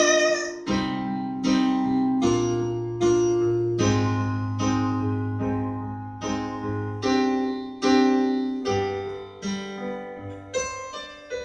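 Piano playing slow chords alone, a new chord struck about every three-quarters of a second and left to ring. The playing grows quieter toward the end.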